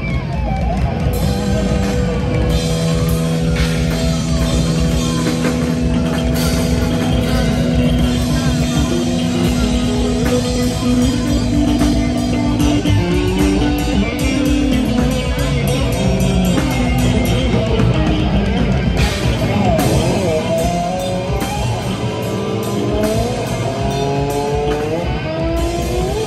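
Thrash metal band playing live: electric guitars, bass guitar and a drum kit. Long held guitar notes in the first half give way, from about two-thirds through, to a lead guitar bending its notes up and down.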